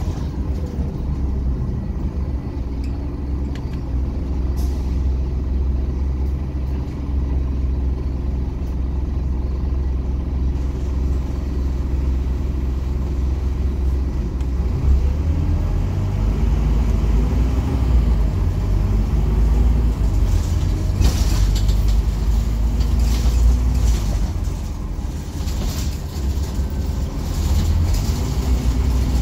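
Scania NewOmnicity city bus driving, heard from inside the passenger cabin: a steady low engine and running hum whose pitch rises and falls as the bus changes speed. It gets louder about halfway through, with a few short rattles in the second half.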